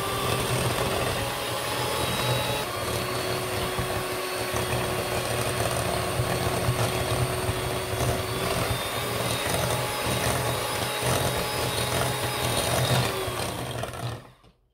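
Electric hand mixer running steadily, its beaters whisking thin cake batter in a glass bowl; it switches off suddenly near the end.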